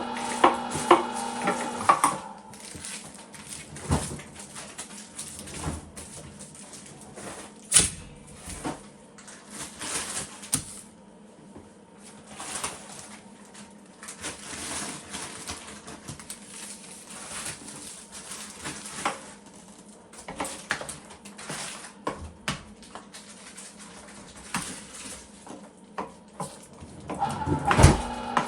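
An electric meat grinder runs for about two seconds and shuts off, then starts up again near the end. In between there are irregular knocks, clicks and clatter of hands working with trays, utensils and packages of ground meat.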